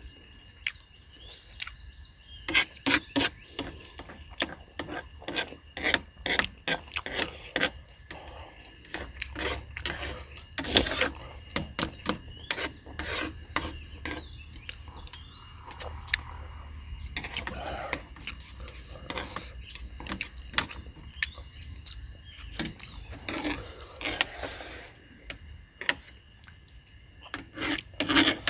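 Close-up eating sounds: irregular clicks, smacks and scraping, with one spell of several quick clicks about three seconds in and another burst near the end.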